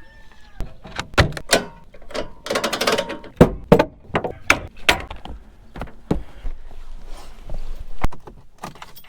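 A string of sharp knocks and clunks of hard objects being handled, with a short quick rattle about three seconds in.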